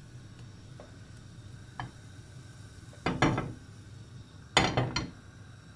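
Frying pan being handled on a gas hob's metal grate while pancake batter cooks: a short tick, then two brief scraping clatters about a second and a half apart, over a low steady hiss.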